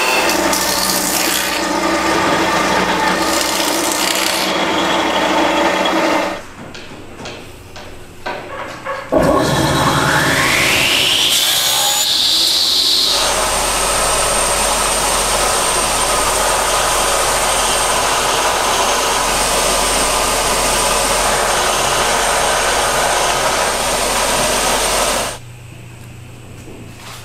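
Band saw cutting a wooden strip for about six seconds, then a quieter pause with a few clicks. About ten seconds in, a motor spins up with a rising whine, then runs steadily with a thin high tone until it stops near the end.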